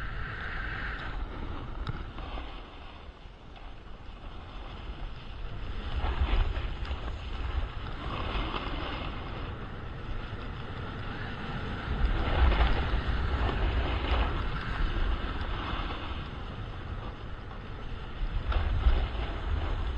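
Wind buffeting the microphone in low gusts during a fast run down a groomed ski trail, with the hiss and scrape of edges sliding and carving on packed snow that swells and fades with each turn.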